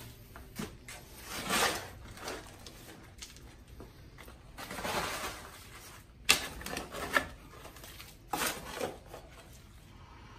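Shovel digging dirt and gravel out of a hole in a concrete floor: repeated gritty scrapes every second or two, with several sharp knocks of the blade in the second half, and dirt dropped onto a plastic tarp.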